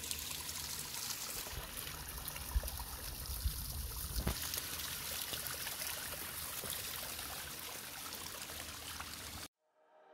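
Small stream of snowmelt trickling and splashing steadily, with a few low bumps on the microphone about two to four seconds in. The sound cuts off abruptly shortly before the end.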